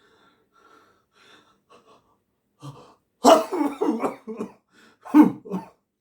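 A person coughing: faint breaths at first, then a loud run of several quick coughs about three seconds in, and one more hard cough a couple of seconds later.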